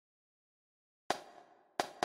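Marching snare drum from notation-software playback: two sharp hits about two-thirds of a second apart, the first about a second in, each with a short ringing decay.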